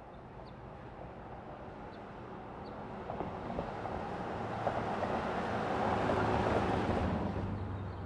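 2020 Mercedes-Benz GLS 580 SUV, with its twin-turbo V8, driving past: engine and tyre noise swelling as it approaches, loudest about six seconds in, then fading as it moves away.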